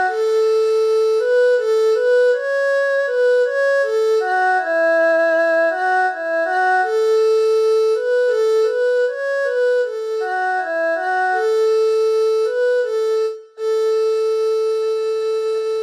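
Background music: a melody played one note at a time with held notes, dropping out briefly about thirteen seconds in.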